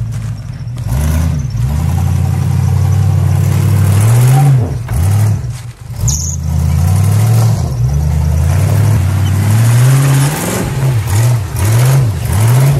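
Carbureted 350 small-block Chevy V8 in a homemade rock-bouncer buggy, revving up and down under load as it crawls over snow and logs. Near the end the throttle is blipped in a run of quick, short revs.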